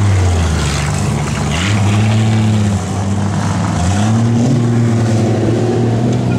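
Demolition derby car engines running and being revved, the pitch climbing and dropping back a couple of times.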